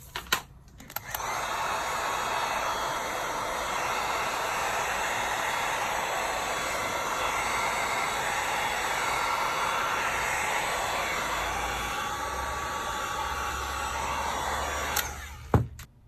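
Heat gun blowing steadily, warming the glue that holds an iPad mini 4's screen glass to its metal frame so the glue softens. It switches on with a click about a second in and cuts off near the end, with another click.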